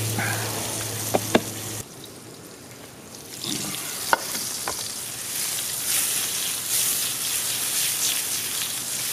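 Mushrooms sizzling in butter and olive oil in a skillet, with a few sharp clinks of the pan as it is handled. The sizzle drops away for a moment about two seconds in, then comes back.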